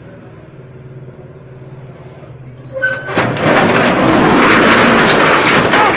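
A Polaris RZR side-by-side's engine idling, then about three seconds in a sudden loud, rough rush of engine noise as it is throttled hard off the boxcar ramps.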